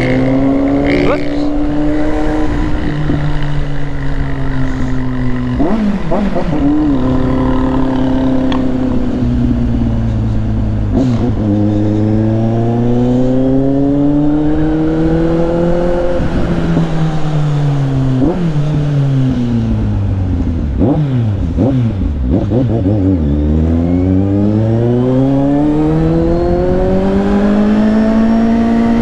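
Motorcycle engine being ridden hard, its pitch climbing and dropping again and again as it accelerates, changes gear and slows. There are several quick throttle blips in the middle, and a long climb near the end. Wind rushes over the microphone the whole time.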